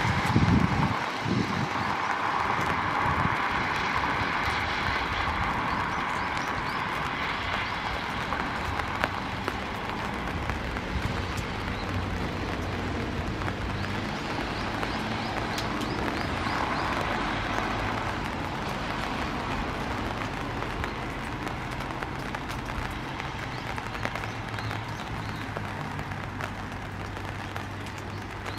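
Outdoor street background noise: a steady hum of traffic, with a low rumble of wind on the microphone in the first second or so.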